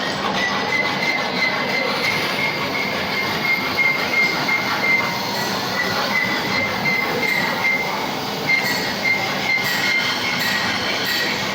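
Hand file working the steel screw of a hacksaw frame's wing nut down to a smaller diameter: a continuous metallic rasping with a wavering high-pitched squeal of metal on metal.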